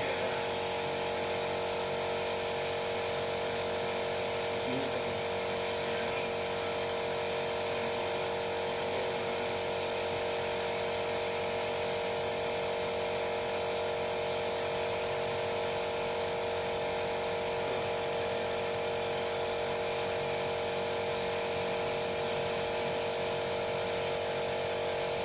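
Small handheld electric rotary tool running at a steady speed with an even, unchanging whine while working on a resin figure.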